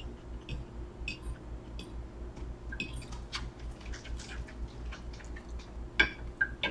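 A person eating with a fork: quiet chewing and small clicks of the fork against a plate, with one sharper click about six seconds in, over a faint low hum.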